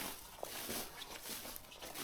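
Footsteps of someone walking, an irregular run of soft steps.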